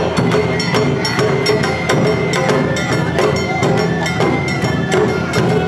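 Awa-odori hayashi played live: a shinobue bamboo flute carrying a bending melody over a fast, steady beat of the kane hand gong, shime-daiko and ō-daiko drums.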